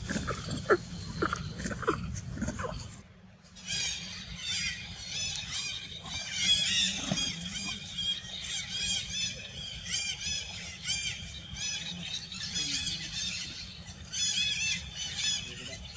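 Macaques squealing: a rapid, continuous string of short, high, arched squeals, several overlapping, starting after a brief dip in the sound about three seconds in. Before the dip there are a few short, sharp calls.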